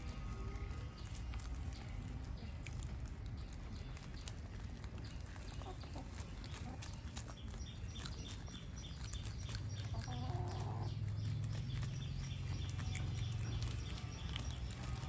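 Rabbits chewing and rustling fresh green leaves: a rapid scatter of small crunches and clicks. A chicken clucks among them, most clearly in one short call about ten seconds in, and a low steady hum swells up around the same time.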